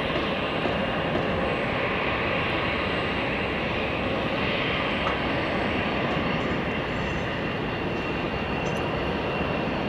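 The four Honeywell LF507 turbofans of an Avro RJ100 running as the jet taxis, a steady engine rush with a faint high whine.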